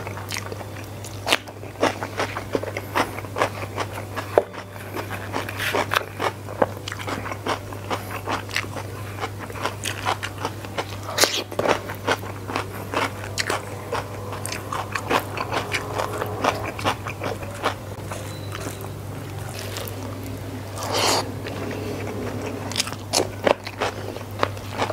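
Close-miked eating: chewing rice and crunching raw cucumber, with many short sharp crunches and wet mouth sounds.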